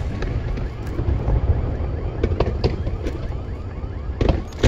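Aerial fireworks display heard from a distance: a continuous low rumble of shell bursts with faint whistles sliding in pitch, then a cluster of sharp bangs about four seconds in.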